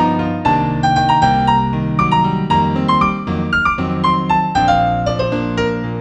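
Piano playing a gentle instrumental melody over held low chords; in the second half the melody steps downward note by note and settles on a sustained chord.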